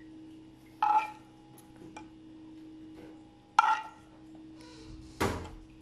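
A spoon clinks against a metal pan three times while white sauce is scooped out and dabbed onto the pizza. The first two clinks, about a second in and about three and a half seconds in, ring briefly; the third, near the end, is a duller knock. A faint steady hum runs underneath.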